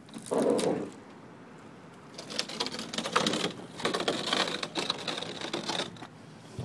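Jayco toy hauler's spring-assisted rear ramp door being lifted shut by hand: a thump about half a second in, then a few seconds of rapid metallic rattling and clicking.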